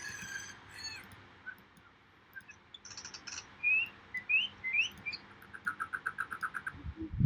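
Bird calls: a call fading out in the first second, then a few short rising whistles, then a fast trill of about ten notes.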